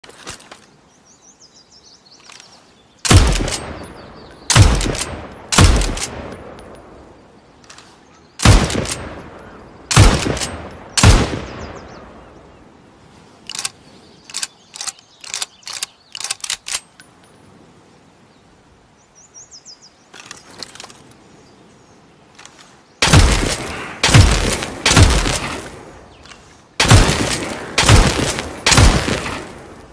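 Winchester rifle shots, each with an echoing tail: two groups of three spaced about a second apart, then a run of quieter metallic clicks of the action being worked, then two faster strings of about four shots near the end. Faint bird-like chirps between the shots.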